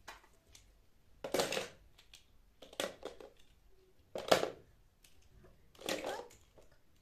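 Toy cars clattering against and dropping into a plastic shape-sorter box, in four short rattling bursts about a second and a half apart.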